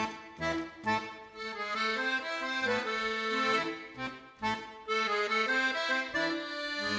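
Accordion-led background music, with a bouncing bass line of short notes and a stretch of held chords in the middle.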